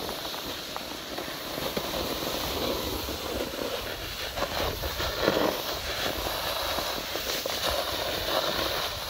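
Snowboard sliding and scraping over snow, a steady rough noise with scattered crackles, mixed with wind and handling noise on the pole-mounted phone's microphone.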